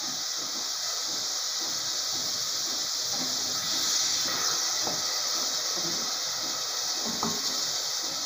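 Grated onion sizzling in hot oil in an aluminium pan: a steady frying hiss.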